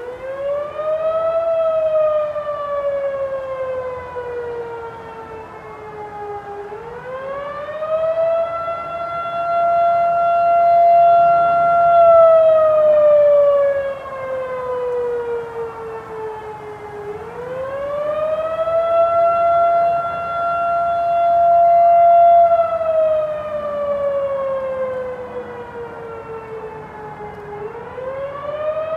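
Fire department siren sounding the alert for a structure fire. It winds up, holds a steady wail for a few seconds, then slides slowly down before winding up again, about every ten seconds.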